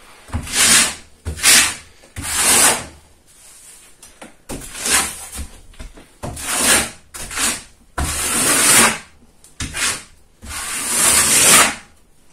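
Steel trowel scraping wet plaster across a drywall wall in about ten irregular strokes, each from a fraction of a second to about a second long. This is a thin coat laid on 'на сдир': pressed on and scraped back off hard.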